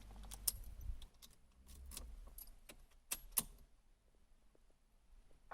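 Faint, irregular clicks and rattles over a low rumble in a Ford Fiesta, the strange noise its owner is recording.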